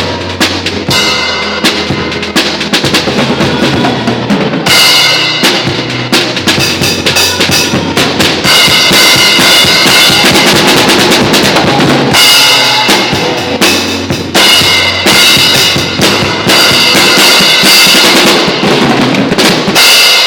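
Drum-heavy music: a drum kit with bass drum, snare and cymbal hits in a steady rhythm over a low bass line.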